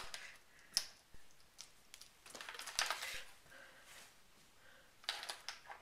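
Faint handling noises: scattered small clicks and rustles, with a short cluster in the middle and another near the end.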